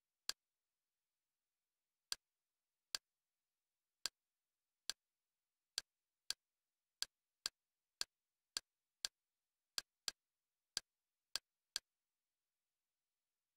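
Kodi menu navigation clicks: about sixteen short, sharp ticks at uneven spacing, one or two a second, each one a step through the home-screen menu, with dead silence between them.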